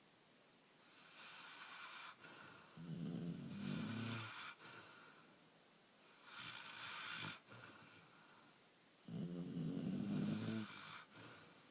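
Sleeping puppy snoring in slow, regular breaths: a breathy hiss, then a louder low snore, twice over.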